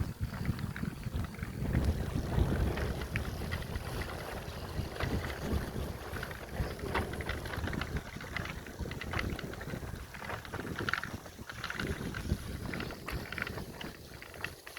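Riding a bicycle: wind rumbling on the microphone, with many small clicks and rattles from the bike throughout.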